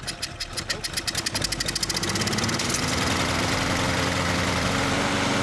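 Troy-Bilt push mower's single-cylinder engine catching and starting, its firing strokes quickening over the first two seconds until it runs steadily at speed. It is running again on a freshly cleaned carburetor, after a clogged jet kept it from starting.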